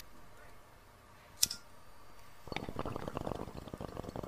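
A sharp click about a second and a half in, then from about two and a half seconds a steady dense crackling of many small pops.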